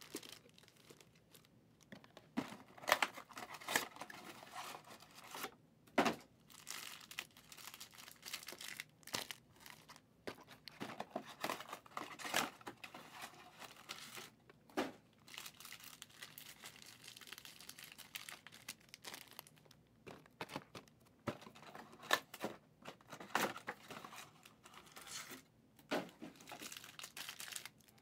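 Trading card boxes and their foil card packs being handled and torn open by hand: plastic wrap and foil crinkling and tearing in irregular spells, with a few sharp taps.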